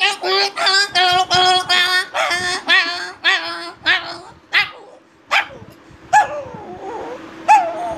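A man imitating two dogs fighting with his voice: quick runs of barks and yelps, thinning to a few single yelps in the second half.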